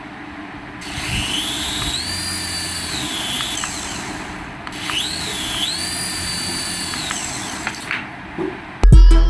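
Small electric motor of a radio-controlled toy whining as it spins up, holds speed and winds down, twice.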